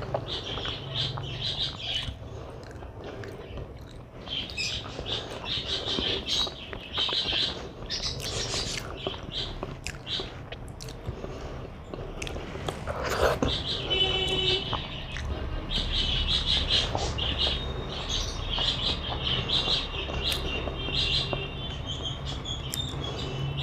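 Pet budgerigars and lovebirds chirping on and off in the background, over close chewing and eating sounds.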